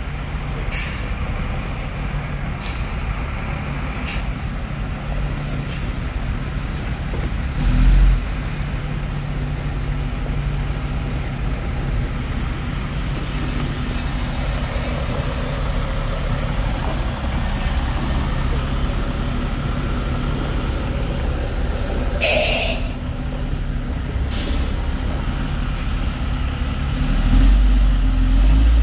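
Diesel engine of a six-wheel army cargo truck running at low speed as it creeps onto a trailer deck, with a thump about eight seconds in and a brief air-brake hiss about twenty-two seconds in. The engine grows louder near the end.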